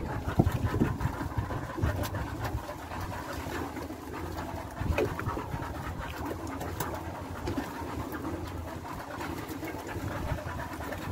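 Small fishing boat's engine running with a steady low hum, under wind and water noise and a few knocks on deck.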